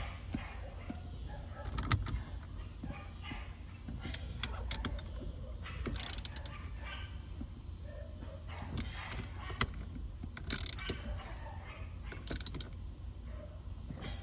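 Hand tools tightening the hex bolts of a steering wheel hub adapter: irregular clicking and metal-on-metal ticking, with three short louder noises about six, ten and a half, and twelve seconds in.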